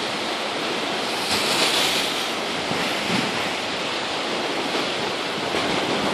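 Steady rushing and splashing of water on a flooded street, swelling briefly about a second and a half in.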